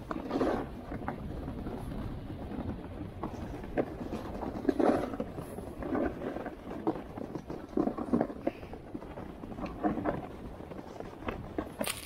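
A series of irregular knocks and clacks, a dozen or more hard taps at uneven spacing, over a steady low rumble.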